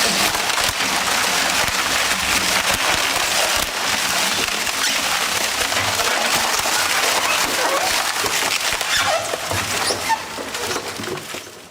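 WEIMA Vampire 1300 single-shaft shredder chewing up wood: a steady, dense crackle of wood splintering under the cutting knives, dying away near the end.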